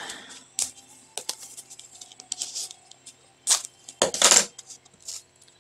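Scissors cutting through packing tape: scattered sharp clicks and short rasping snips, the longest about four seconds in.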